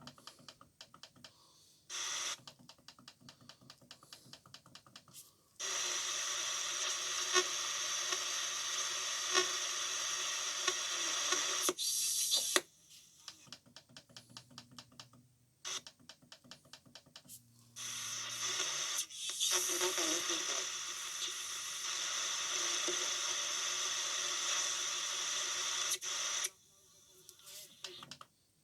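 Shortwave radio between stations: stretches of steady static hiss that switch on and off abruptly, alternating with quieter passages of rapid, even ticking. A faint low hum comes in briefly around the middle.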